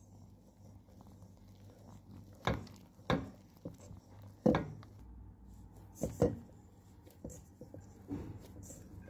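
Hands kneading dough in a bowl: a series of dull thumps and squishes at irregular intervals as the dough is pressed and folded, loudest around the middle.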